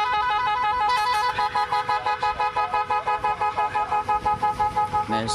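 Basuri musical horn sounding a held chord of several flute-like tones. About a second and a half in, the tones begin to pulse in a fast, even warble.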